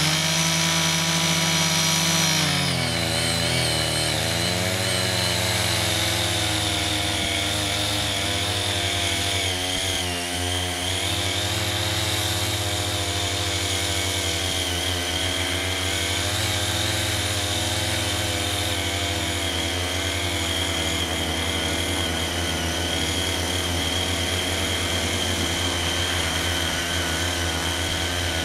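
Small engines of two foldable walk-behind cultivators running under load as their rotary tines churn soil. The engine note rises right at the start, holds for about two seconds, then drops back to a steady run.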